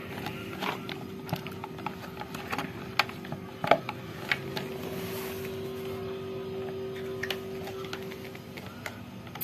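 Scattered light clicks and knocks of a blender's plastic housing and parts being handled and fitted together, over a faint steady hum that stops near the end.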